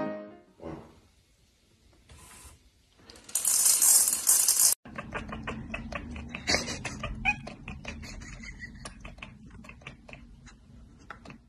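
A cat chattering: rapid clicking with a few short chirps, starting about five seconds in. Before it comes a loud burst of hissing noise lasting about a second and a half.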